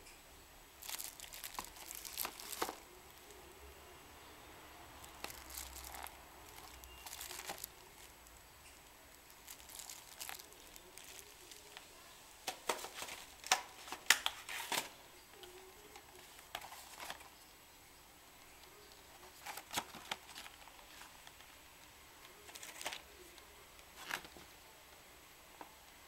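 Clear plastic packaging bag crinkling as it is handled, in irregular bursts with pauses between, and a few sharp clicks of plastic parts.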